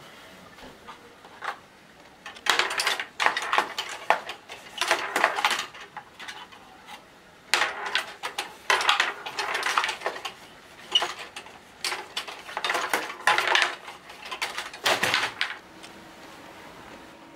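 Small wooden tabletop foosball game being played hard: rapid clattering and knocking of the rods, players and ball in bursts a second or two long with short pauses between.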